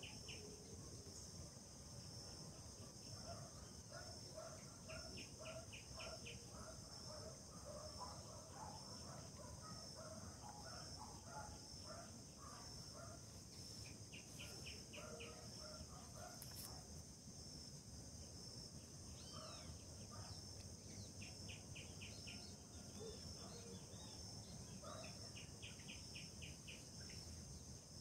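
Faint outdoor ambience: a steady high-pitched insect drone, with birds calling over it. Short rapid trills repeat every few seconds, and a run of lower chirping notes comes in the first half.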